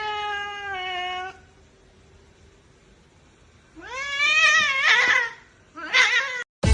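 A domestic cat meowing three times: a long meow sliding gently down in pitch, then about four seconds in a longer meow that rises and falls, and a short meow near the end.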